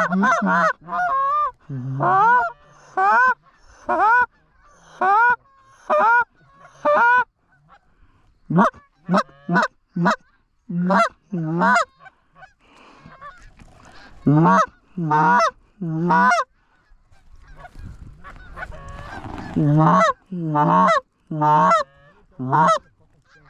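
Canada goose honks and clucks, loud single calls about one a second with a sharp break in pitch, pausing briefly midway. A rising rush of noise swells under the calls about three quarters of the way through.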